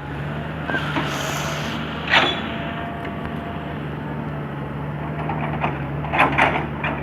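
Diesel excavator engine running steadily, with a few short sharp knocks or clanks: the loudest about two seconds in, and another cluster near the end.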